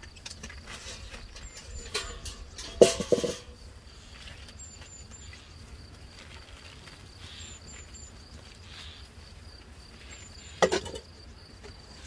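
A galvanized metal bucket clanks twice as it is handled and set down, once about three seconds in and again near the end, each knock ringing briefly. Behind it insects chirr steadily, and a short high three-note chirp repeats every few seconds.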